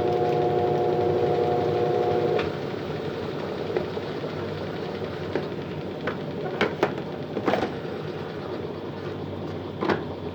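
Colormaq LCA12 washing machine running with a steady whine that cuts off about two and a half seconds in, leaving a lower hum with a handful of sharp clicks and knocks.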